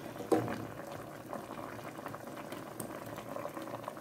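Pot of water at a rolling boil with sliced unripe plantain in it, bubbling steadily with small crackles. There is a single sharp knock about a third of a second in.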